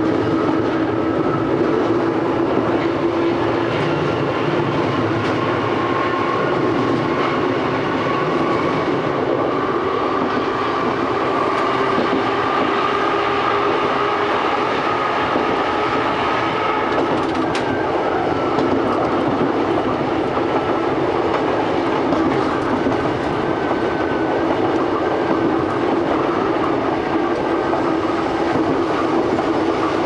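Old Kotoden electric train cars 500 and 120 running at a steady speed, heard from the cab: a steady whine from the nose-suspended traction motors and their gearing, holding a near-constant pitch over the noise of wheels on the rails.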